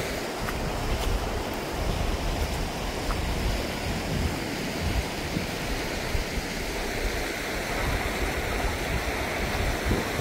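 River water running steadily, a continuous rushing, with uneven low rumbling from wind on the microphone.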